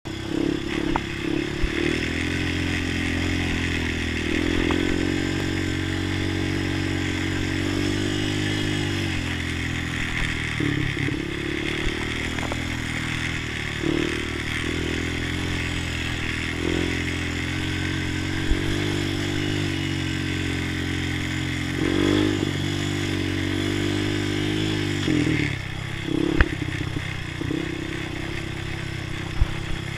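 Honda TRX250EX sport ATV's single-cylinder four-stroke engine running at low trail speed, its pitch rising and falling with the throttle several times. A few sharp clunks from the quad jolting over bumps.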